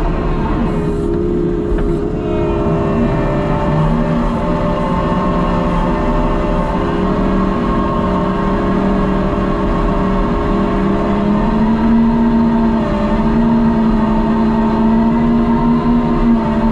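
Hyundai HT100V skid steer's diesel engine and hydraulics running under work, a steady drone with a whine that steps up in pitch twice and drops back near the end as the machine is throttled and loaded.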